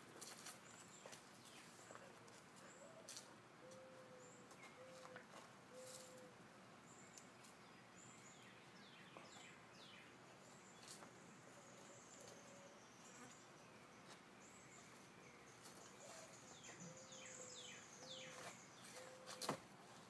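Faint outdoor ambience with birds calling: quick falling chirps and short, steady low notes repeated in two spells. A few faint clicks, with a sharper one near the end.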